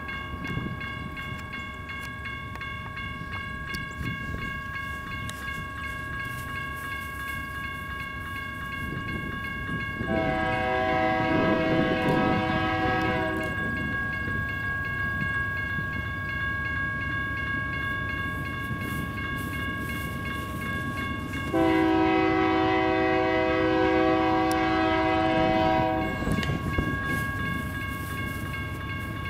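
Air horn of an approaching Union Pacific freight locomotive sounding two long blasts, the first about three seconds and the second about four and a half seconds, over a steady low rumble of the oncoming train.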